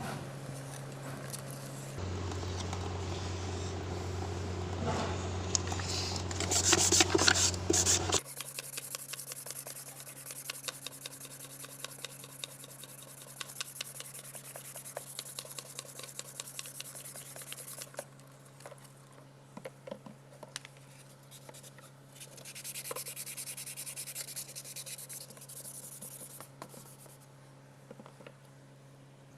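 Sandpaper rubbing back and forth on a faded plastic tail-light lens, with quick repeated strokes. It is loudest in a stretch of a few seconds near the start, over a steady low hum.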